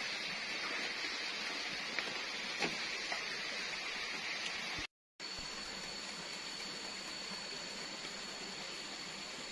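Steady rain falling on the rainforest foliage, with a few faint drips, cut off abruptly about five seconds in; then a shallow stream running, with a thin steady high tone above it.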